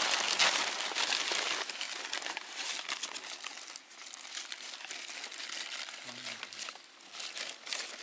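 Paper wrapping of a fish and chips parcel crinkling and rustling as hands pull it open. It is loudest in the first couple of seconds, then dies down to a few softer crackles, with a short flurry near the end.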